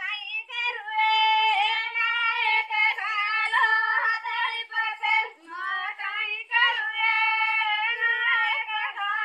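Banjara women singing a folk song without instruments, high voices holding long notes in phrases with short breaks between them.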